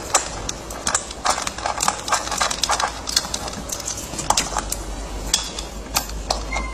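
Hands fitting a washer and the plastic wheel onto the front axle of a kids' ride-on toy truck: quick, irregular clicks and taps of small hard parts being handled.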